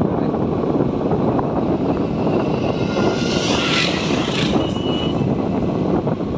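Motorcycle engine running steadily while riding, with wind rushing over the microphone. A louder hiss rises and fades between about three and four and a half seconds in.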